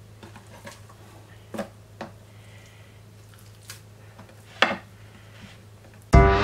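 A few soft knocks and taps as a raw spatchcocked poussin held with wooden skewers is handled and turned over on a wooden cutting board. The sharpest knock comes about four and a half seconds in. Just before the end, a loud gong stroke starts ringing.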